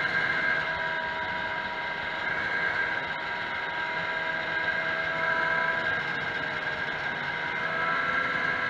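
Vintage 340 cc two-stroke racing snowmobile engine at high revs, heard from on board the sled. The engine note holds steady, then shifts in pitch about two-thirds of the way through as the sled comes onto the straight.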